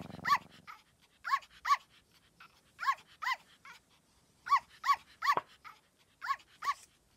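Puppy sound effect: short, high yips coming in quick pairs, about five pairs, with quiet gaps between them.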